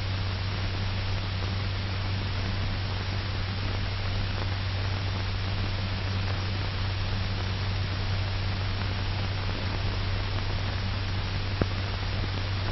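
Steady hiss and low hum of an old film soundtrack, with one faint click near the end.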